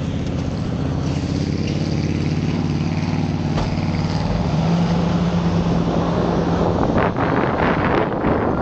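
Off-road 4x4's engine revving hard under load on a steep hill climb, its pitch climbing about halfway through. Near the end a rough rushing noise takes over.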